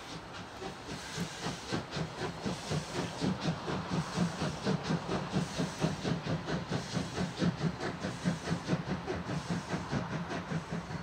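Steam locomotives of a double-headed train, led by a DR class 44 three-cylinder 2-10-0, pulling away hard: a fast, even run of loud exhaust beats, several a second, growing louder over the first few seconds. Under the beats runs the hiss of steam from the open cylinder drain cocks.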